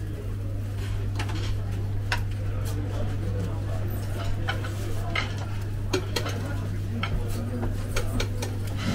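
Plates and metal kebab skewers clinking and clattering in a scatter of sharp knocks as cağ kebab portions are plated and handled. A steady low hum runs underneath.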